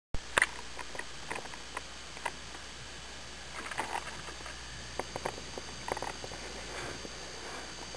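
Underwater ambience picked up through an action camera's waterproof housing: irregular small clicks and taps, a sharp click near the start, and two short rustling bursts in the middle. Under them runs a steady hiss with a faint high whine.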